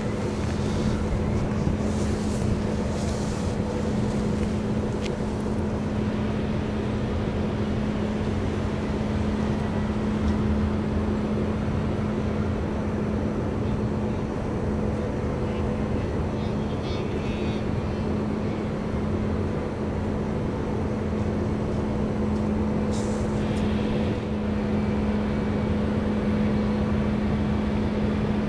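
Steady low drone of ships' engines, with a constant deep hum, from the tug and ferry working in the harbour.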